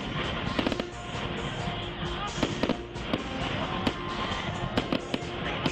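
Fireworks display: irregular sharp cracks and bangs of bursting shells, several close together in places, with music playing underneath.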